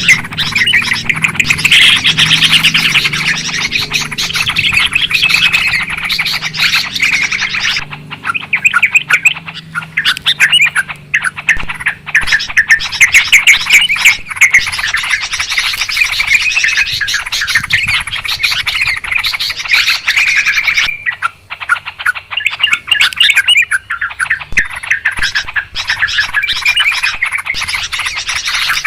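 Yellow-vented bulbuls (trucukan) calling noisily: a dense, continuous run of rapid chattering notes, with brief lulls about eight seconds in and again a little past twenty seconds. It is the kind of recording played to lure bulbuls down to a trap.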